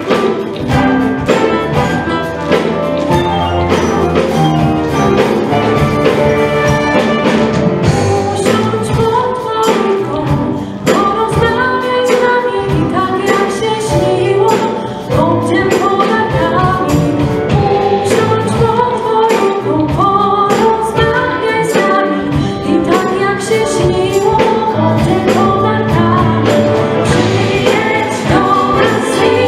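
A woman singing a Christmas song into a microphone, with a live orchestra that includes strings accompanying her, over a steady percussion beat.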